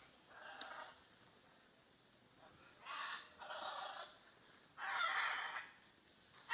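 Macaws giving four harsh squawks, spaced out over several seconds, the last the loudest.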